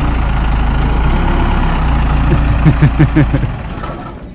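Case 580 backhoe loader's diesel engine running with a steady low hum as the machine drives, fading away near the end. A few short rising pitched sounds come over it a little past halfway.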